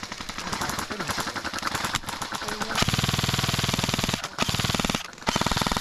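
Airsoft guns firing full-auto to empty their magazines: rapid strings of shots in several long bursts, loudest from about three seconds in, with short pauses between bursts.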